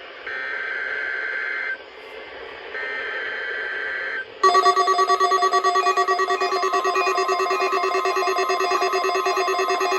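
Two bursts of warbling digital data tones from the weather radio broadcast, each about a second and a half long: an EAS/SAME header for the Required Weekly Test. About four and a half seconds in, the Eton and Reecom weather alert radios start their alert: a loud electronic beeping of several tones at once, pulsing rapidly.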